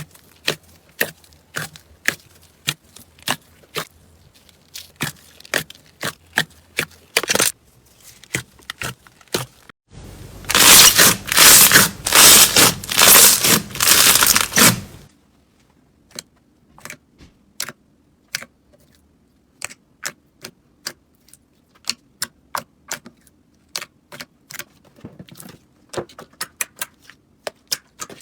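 Slime being pressed and squished by hand, giving a run of sharp crackling clicks and pops. About ten seconds in there is a dense, louder burst of crackling lasting about five seconds, then the clicks become sparse.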